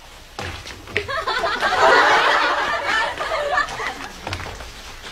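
Audience laughing, swelling about a second in and dying away after about three seconds, with a short knock just before it.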